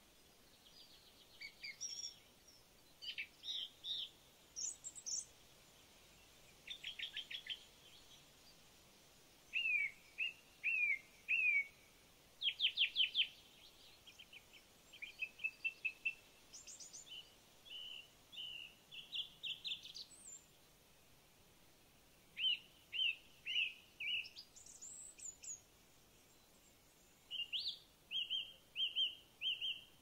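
Songbirds singing: a run of short phrases of high chirps, quick trills and down-slurred whistled notes, repeated with brief pauses between them, over a faint steady background hiss.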